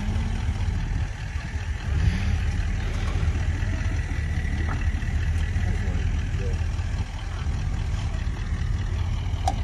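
Pickup truck engine idling steadily while hitched to a stuck motorhome, before the pull.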